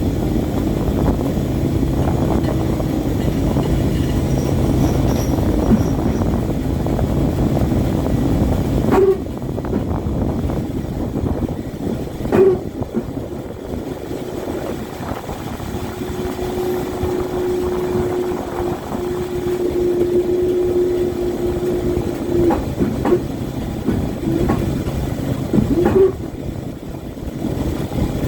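A boat's engine running steadily, a low rumble heard on board, with a held tone for several seconds in the middle and a few sharp knocks, at about 9, 12 and 26 seconds in.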